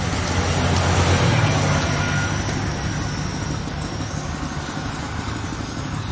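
A vehicle engine running nearby, loudest about a second in, then fading over the next couple of seconds.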